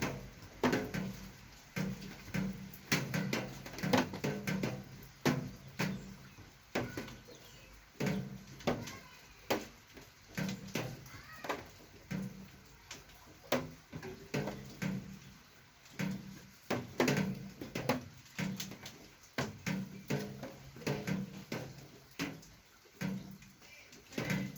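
Repeated sharp knocks and clicks, roughly one every half second to a second, with a low hum beneath: a Rock Shox Judy suspension fork being worked to show the noise it makes.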